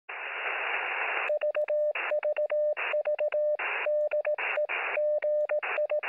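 Morse code heard over a radio receiver: a single steady mid-pitched tone keyed in quick dots and dashes. The hiss of band static fills the first second and comes up in the gaps between characters.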